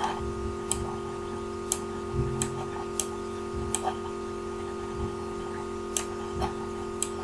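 Computer mouse clicking: about seven sharp single clicks at uneven intervals, over a steady electrical hum.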